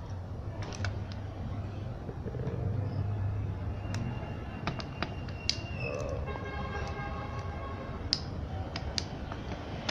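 Light metallic clicks of piston rings being handled and seated on a petrol-engine piston, over a low steady hum. For about two seconds past the middle, a high siren-like tone with several overtones sounds in the background.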